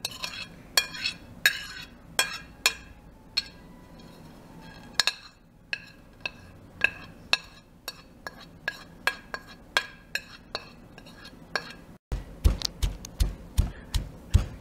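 A metal spoon clinking and scraping against a plate as chopped lemongrass and spice powders are knocked off into a stone mortar. About two and a half seconds before the end a stone pestle starts pounding in the mortar, about three dull thuds a second, grinding the lemongrass paste.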